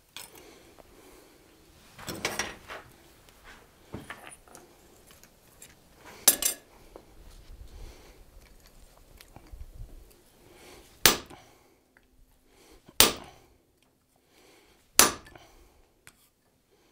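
Hammer blows on a hand punch held on red-hot 1/8-inch sheet steel on an anvil, punching eye and pupil marks into the wings of a forged butterfly. A few softer knocks and clinks in the first half, then three sharp ringing strikes about two seconds apart.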